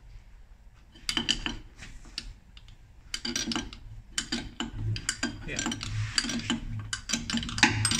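Metal clinks and scrapes of a spanner working the nuts on a steel clamping plate, loosening it to free the concrete sample. A few clinks come about a second in, then a busier run of clinking from about three seconds on.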